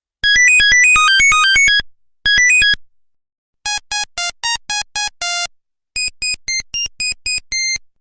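Nokia 1100 monophonic ringtone: a melody of single high electronic beeps. It opens with a fast run of notes and a short repeated phrase, then goes on in rows of short, evenly spaced beeps.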